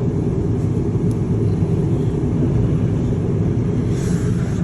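Wild blizzard wind, a steady low rumble, heard from inside a Ferris wheel gondola.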